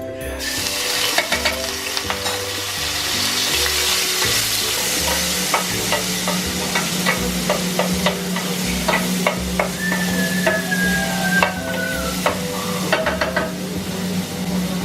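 Food sizzling in hot oil in a pan, starting suddenly just after the start, with a utensil clicking and scraping against the pan as it is stirred.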